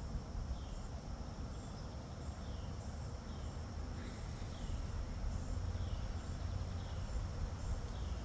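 Crickets trilling steadily in high unbroken tones, with a short falling chirp repeating about once a second, over a steady low rumble.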